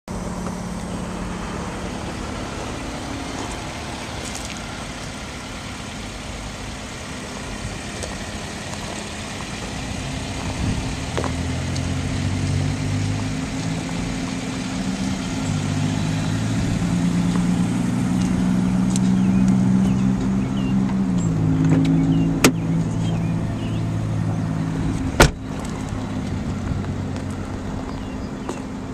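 A 2002 Hyundai Elantra's four-cylinder engine idling, a steady low hum that shifts pitch a few times. Two sharp clicks come in the last third.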